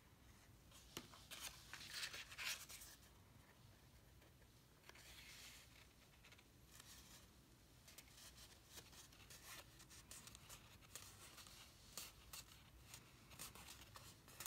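Faint rustling and scraping of card stock paper as the pieces are handled, pressed together and folded, in short scattered bursts.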